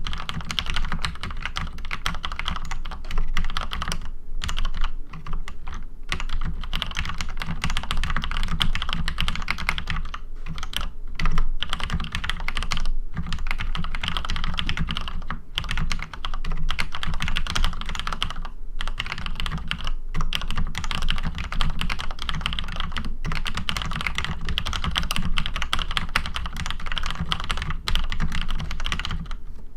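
Fast typing on a Cherry G80-1800 mechanical keyboard with retooled Cherry MX Black linear switches, lubed with Superlube 51014, and stabilizers lubed with dielectric grease: a quick, continuous patter of keystrokes with a few short pauses.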